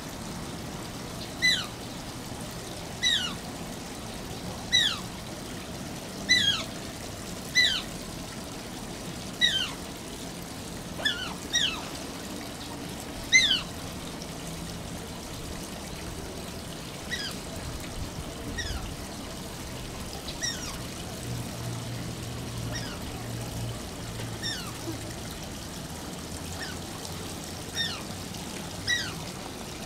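Asian small-clawed otter calling with short, high squeaks that fall in pitch, about one every second and a half, fainter and more scattered in the second half.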